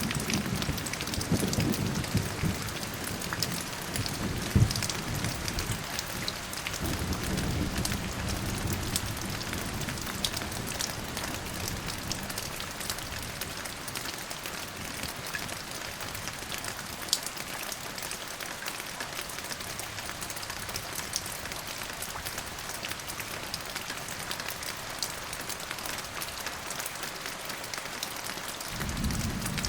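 Steady rain falling, with a low rumble of thunder over the first dozen seconds that fades away, and a new rumble starting just before the end.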